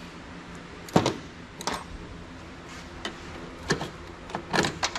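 Scattered clicks and knocks of hands working inside a dirty computer tower's metal case and wiring: one sharp knock about a second in, then a few lighter clicks and clanks.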